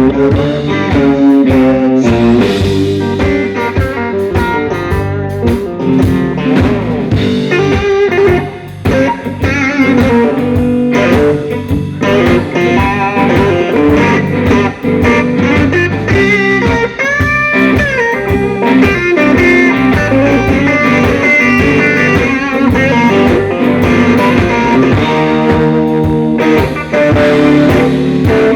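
Live blues-rock band playing an instrumental break led by electric guitar, over bass and drums, with a couple of bent guitar notes about two-thirds of the way through.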